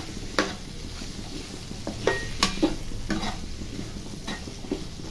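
Slotted spoon stirring diced vegetables frying in oil in a non-stick kadhai: a soft sizzle under scattered clicks and scrapes as the spoon hits the pan. The vegetables are being sautéed with turmeric and salt.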